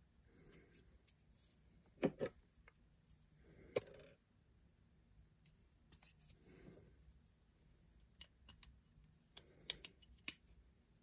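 Faint handling noises: small, sharp clicks and taps as a camera lens and metal lens adapter are turned in the fingers, with soft rubbing between. There is a pair of clicks about two seconds in, another near four seconds, and a cluster of clicks near the end.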